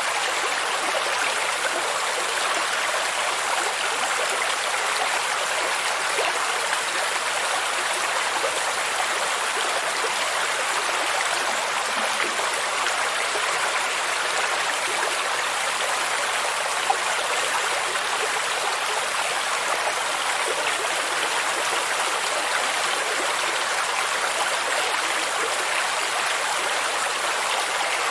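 A stream with a waterfall: flowing water making a steady, even rush that never pauses or changes.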